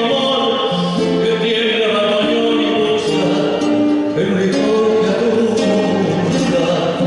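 A tango sung by a male singer with instrumental accompaniment, the voice holding long pitched notes.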